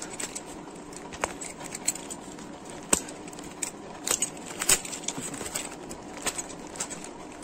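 Plastic mailer packaging of a parcel rustling and crackling as it is handled and slit open with a box cutter, with a string of sharp clicks and crinkles.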